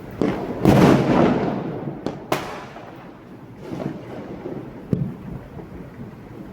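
Diwali fireworks and firecrackers going off: a string of sharp bangs. The loudest is a burst about a second in with a crackling tail, followed by sharp cracks a little after two seconds, around four seconds and near five seconds.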